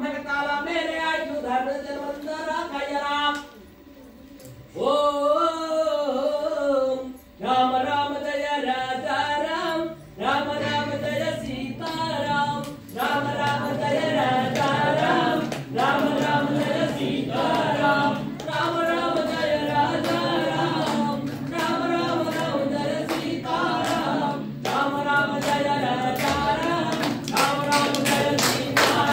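A group of voices singing a Hindu devotional hymn without instruments, breaking off briefly about four seconds in. Rhythmic hand-clapping joins in near the end.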